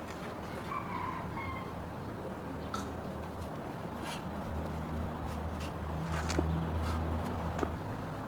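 A low, steady hum with scattered sharp clicks and taps, and a short clucking call about a second in. The hum grows louder past the middle.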